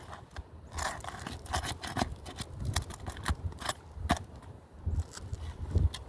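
Roofing scraper and pry tools working under asphalt 3-tab shingles, breaking the sealant bond to free a wind-damaged shingle: a run of irregular clicks, crackles and scrapes.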